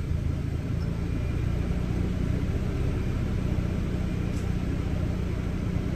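A car engine running steadily with a low rumble, heard from inside the cabin.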